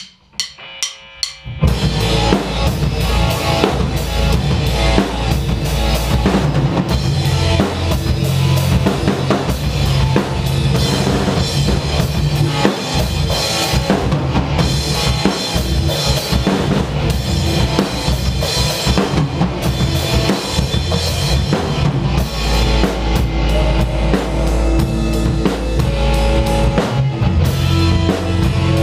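A live band playing: drum kit close to the microphone, with electric guitars. A few sharp clicks come first, and the full band comes in together about a second and a half in.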